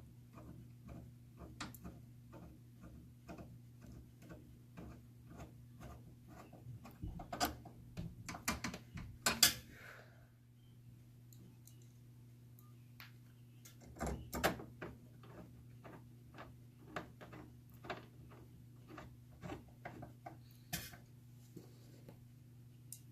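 Small clicks and clattering knocks of parts being handled, louder in clusters a third of the way in, around the middle and near the end, over a steady ticking of about two to three ticks a second and a low steady hum.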